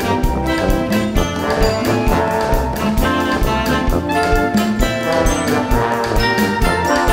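Wind band playing a tune, with sustained brass chords over a steady drum beat.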